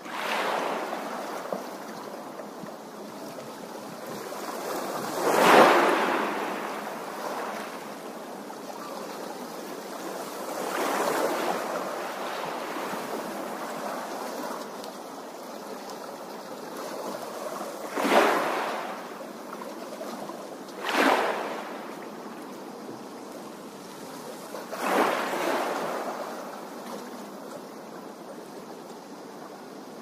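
Small waves splashing onto a stony lakeshore: a steady wash of water with about six swells that rise and fall several seconds apart, the loudest about five seconds in.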